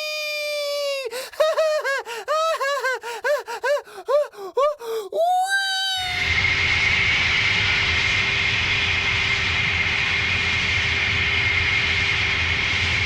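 A high-pitched voice ending a long, falling "weee", then laughing "hahaha" in quick, bouncing syllables for about four seconds and finishing on a rising held note. About six seconds in, the voice gives way to a steady rushing noise with a high, steady tone through it.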